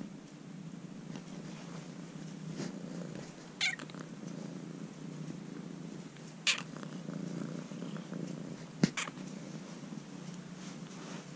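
Ginger-and-white kitten purring steadily while being patted on the lower back. A few short sharp sounds cut in, about 4, 6½ and 9 seconds in; the one near 9 seconds is a double and the loudest.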